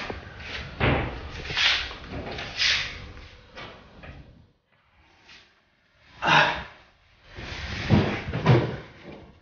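Wooden wardrobe doors being opened and closed: a series of knocks and thuds over the first four seconds, then a short silence and a few more thuds.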